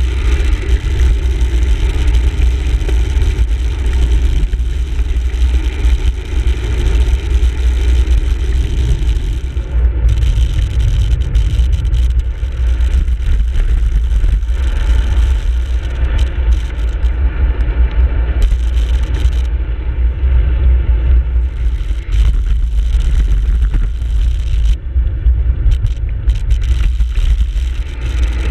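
Wind buffeting the microphone of a handlebar-mounted camera on a road bike riding downhill, a loud, steady low rumble with some road and tyre noise.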